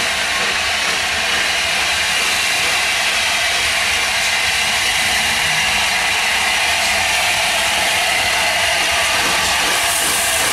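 LNER Class A4 Gresley Pacific 60009 Union of South Africa, a three-cylinder steam locomotive, pulling away from a stand with its train, a steady hiss of steam over the exhaust, slowly getting louder as it draws nearer.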